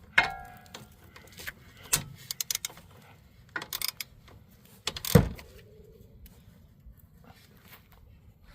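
A socket and ratchet tightening a brake-line bracket bolt on a car's steering knuckle: metal tool clinks and short runs of ratchet clicks. There is a ringing metallic clank just after the start and a heavier knock about five seconds in.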